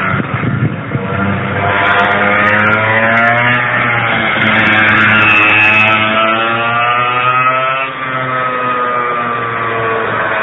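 A 100 cc two-stroke kart engine being run in, revving up and down as the kart drives around: its pitch climbs under throttle, falls back, and drops suddenly about eight seconds in.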